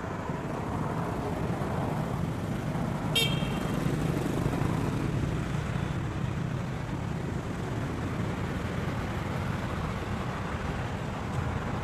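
Steady low rumble of road traffic with motorbikes going past, and one brief high-pitched toot about three seconds in.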